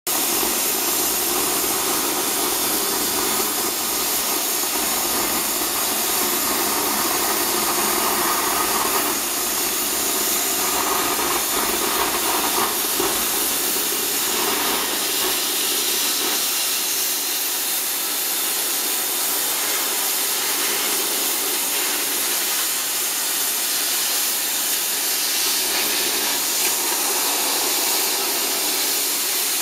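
Oxygen–methane cutting torch of a Zinser CNC 2030 gantry cutter hissing steadily and loudly as its jet flame-cuts through 35 mm steel plate.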